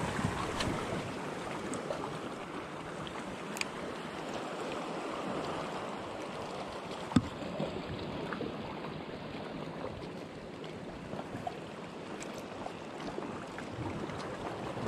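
Small sea waves lapping and washing against shore rocks, a steady wash, with a few faint clicks, the sharpest about halfway through.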